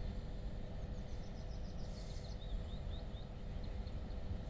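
A small bird chirps a quick run of short high notes over a low steady rumble. A faint steady hum comes from a distant freight train approaching along the line.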